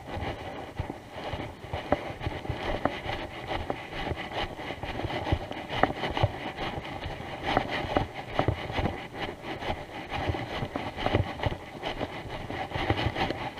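Footsteps swishing and crunching through grass and dry vegetation, with clothing and leash rubbing close to a body-worn microphone, as the walker follows a dog on a tracking line.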